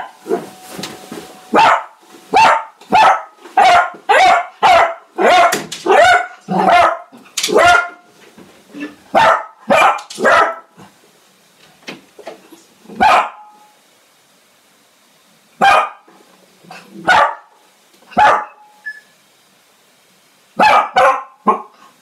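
Pet dog barking at the postman at the door: a quick run of sharp barks, about two a second, for the first several seconds, then fewer, spaced-out barks with pauses, and a short burst of barks again near the end.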